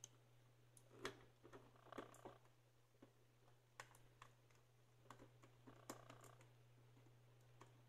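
Faint, scattered light clicks and taps of a small screwdriver and the plastic shell of a wireless mouse being handled as the shell is unscrewed and worked apart, over a low steady hum.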